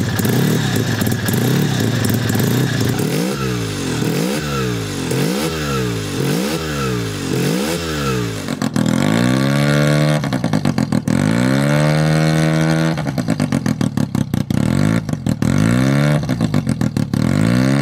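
Suzuki RE5's single-rotor Wankel engine revving, blipped up and down about once a second, then pulled up to higher revs and held in longer runs before dropping back. Sharp crackles from the exhaust come as the revs drop.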